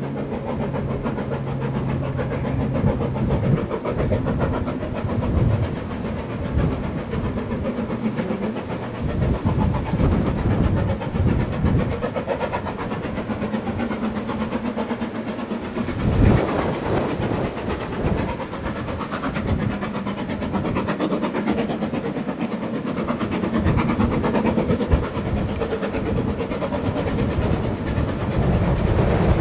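LMS Black 5 4-6-0 steam locomotive No. 45428 working hard up the grade, its exhaust beating in a fast, steady rhythm of chuffs with a hiss of steam.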